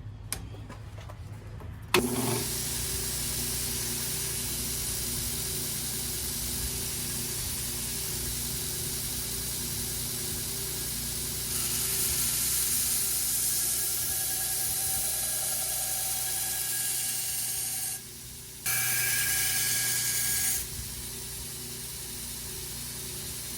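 Belt grinder with a fresh 60-grit belt grinding the bevels of a steel knife blade freehand: a steady motor hum under a hissing rasp of steel on the abrasive belt. It starts suddenly about two seconds in, grows louder about halfway through, stops briefly near 18 seconds, then grinds again before the belt runs on more quietly near the end.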